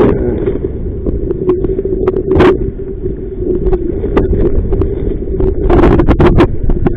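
Strong wind buffeting the microphone with a steady low rumble, broken by scattered sharp slaps and knocks, one strong one about halfway and a cluster near the end.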